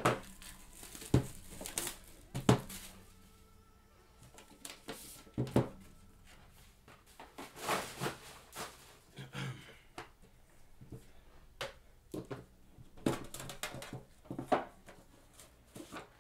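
Plastic shrink-wrap crinkling and tearing as it is cut and stripped off a sealed trading-card box, with scattered knocks and taps from the box and its lid being handled. The sharpest knocks come in the first few seconds.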